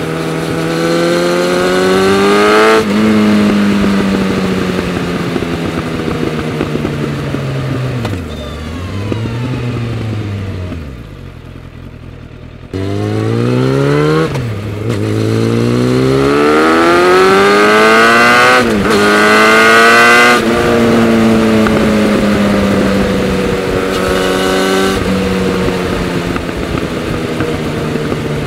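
Suzuki Bandit 650 S's inline-four engine through a Leovince SBK silencer with its dB-killer baffle fitted, heard close from behind the rear wheel. The revs rise, drop sharply at an upshift about three seconds in, then fall away off the throttle and go quieter for a couple of seconds near the middle. Then it pulls hard again, rising through two more upshifts before easing off.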